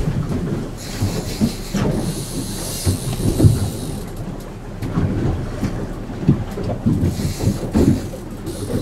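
Boat underway at trolling speed: twin outboard motors running as a steady low rumble, with irregular knocks and thumps of the hull on the chop. Hissing water rushes past twice, first about a second in and again near the end.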